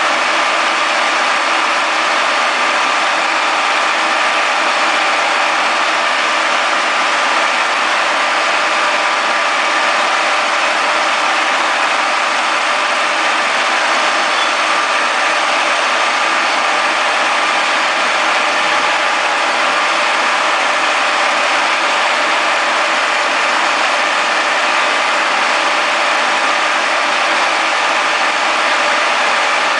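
Conventional milling machine running steadily, its spindle drive giving a constant mechanical whine with several fixed tones, as used for friction stir welding of aluminium alloy.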